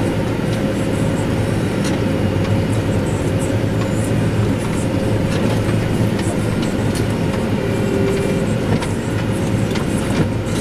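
New Holland T7060 tractor running steadily while pulling a New Holland BB930A large square baler, a constant low drone with scattered sharp clicks and rattles from the machinery.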